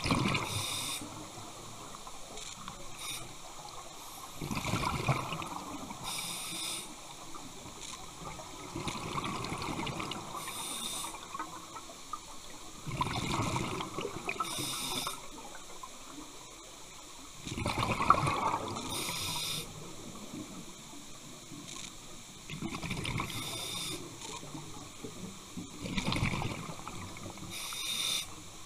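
Scuba diver breathing through a regulator underwater: a rush of exhaled bubbles about every four seconds, alternating with the hiss of each inhalation through the demand valve.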